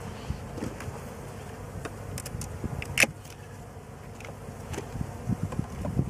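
Honey bees buzzing steadily around an open hive, with scattered light clicks and one sharp click about halfway through as a hive tool works plastic frames loose in the box.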